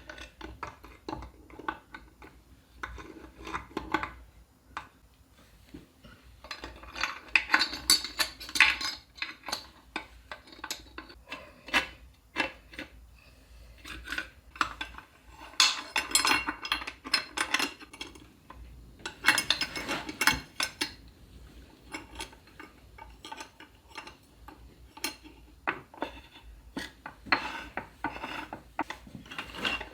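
Metal clinking, rattling and scraping as the selector rods and forks of a Land Rover Series gearbox are worked into the casing by hand. The clatter comes in uneven spells, busiest about 7, 16 and 20 seconds in.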